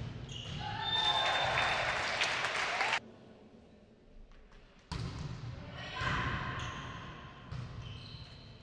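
Indoor volleyball rally: the ball being struck and players shouting, echoing in a gym hall. The sound cuts off abruptly about three seconds in and picks up again about two seconds later.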